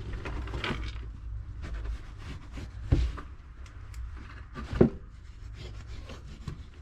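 Thick insulation batt being cut and pushed into a wall cavity around a wire: continuous rustling and rubbing with small clicks, and two sharp knocks, about three seconds in and again near five seconds.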